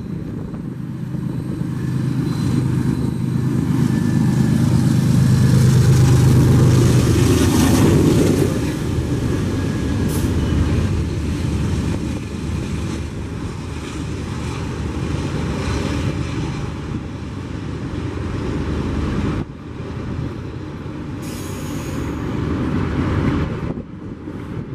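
Union Pacific diesel freight locomotive passing close beneath, its engine's low steady hum loudest about six seconds in. It is followed by the continuous rolling noise of double-stack container cars running over the rails.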